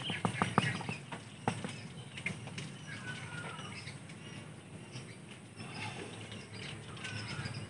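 Quiet handling noises: a few small clicks and taps in the first second and a half as a plastic bottle of cut-sealing paste is handled and dabbed onto pruning wounds on a bonsai trunk. Faint bird chirps come in the background.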